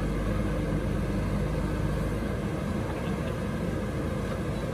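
JCB 3DX backhoe loader's diesel engine running steadily as the machine works its backhoe arm, a low, even rumble under the steady rush of flowing river water.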